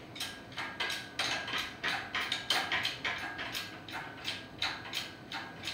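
Hydraulic jack of a shop engine hoist being pumped by hand, clicking and clunking in a steady rhythm of about three knocks a second as it takes the weight of a hanging engine.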